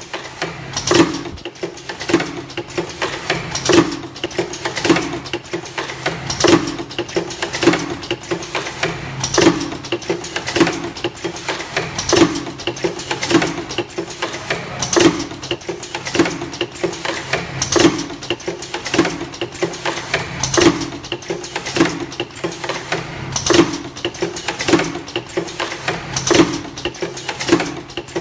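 Semi-automatic ultrasonic earloop welding machine for face masks running its cycle: a sharp mechanical clack of the welding head about every second and a half, with lighter clicks between and a steady low hum underneath.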